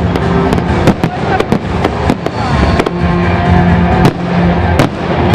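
Fireworks display: shells bursting in sharp, irregular bangs, about three a second, over music playing.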